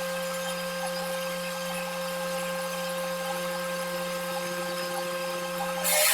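Wood shaper machine running with a steady motor hum. Near the end comes a short loud burst of cutting noise as the spinning cutter meets the wood.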